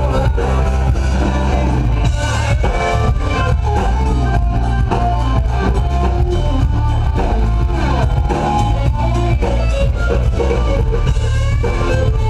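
Live rock band playing loudly through a PA: electric guitar, bass guitar and drum kit.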